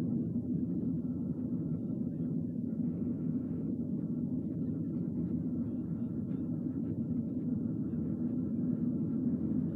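Steady low rumble of a car on the move: road and engine noise, unbroken throughout.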